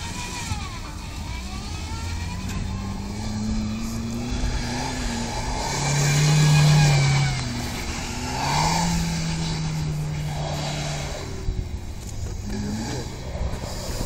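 Nissan Note's engine revving up and down as the car is driven in circles on snow, loudest about six to seven seconds in.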